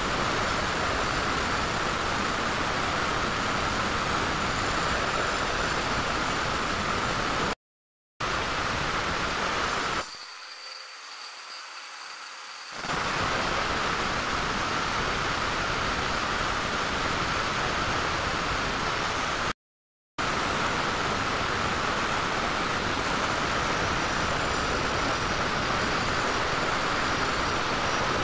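Handheld angle grinder running steadily, its disc cutting into ceramic floor tile, with a constant high whine over the grinding noise. The sound drops out abruptly twice and turns quieter and thinner for a couple of seconds in between.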